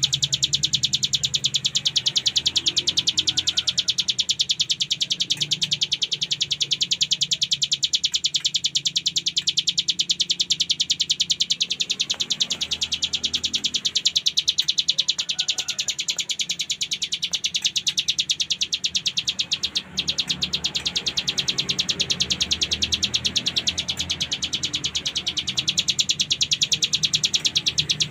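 Hill prinia (ciblek gunung) giving its 'ngebren' song: a rapid, unbroken trill of fast repeated high notes, which breaks off for a moment about two-thirds of the way through.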